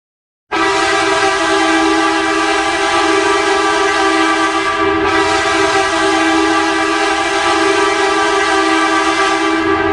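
Ice hockey goal horn: a loud, steady air-horn blast starting about half a second in, with two close low notes sounding together, held without a break.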